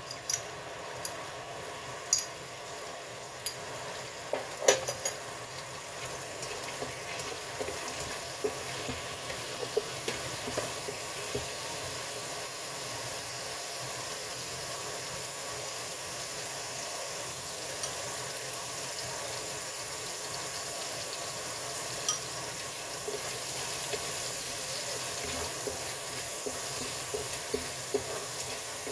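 Oil sizzling in a wok as food fries, with a spatula stirring it. A few sharp clinks and knocks of utensils come in the first few seconds, and the sizzle builds slowly and is loudest in the last few seconds.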